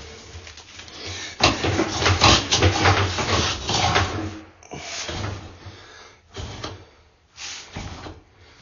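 Irregular rattling and scraping in bursts as a sewer inspection camera's push cable is worked through a drain line. The longest and loudest stretch runs from about a second and a half to four and a half seconds in, followed by three shorter bursts.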